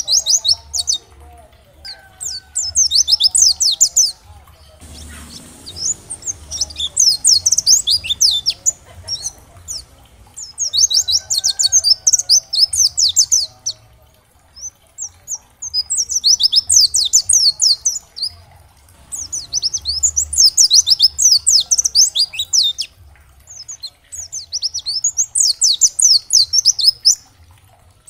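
A white-eye (pleci) singing in repeated fast, high-pitched twittering phrases of a few seconds each, with short pauses between.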